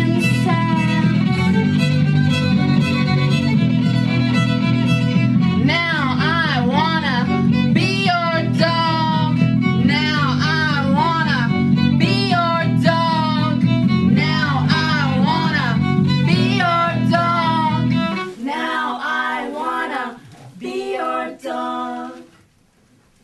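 Live band music: a violin and a woman's voice with wide, wavering vibrato over a steady bass guitar line. About 18 seconds in the bass drops out, a few last phrases follow alone, and the piece stops just before the end.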